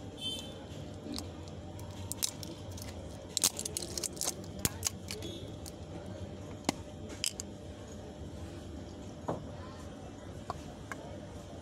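Scattered light clicks and taps of hands handling a small plastic container and its lid, most frequent a few seconds in, over a low steady hum.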